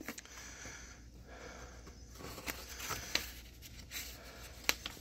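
Faint handling of paper sheets and a cardboard box, with a few light taps and clicks.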